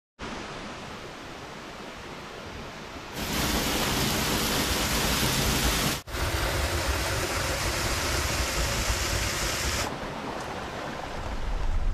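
Waterfall splashing into a pool: a steady rush of water, louder from about three seconds in until about ten seconds, with a brief break near the middle, and a softer rush of flowing water before and after.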